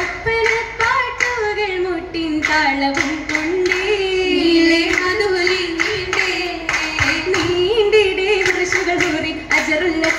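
Oppana song (Mappila pattu) sung by female voices over a single flowing melody, with steady rhythmic hand claps in time.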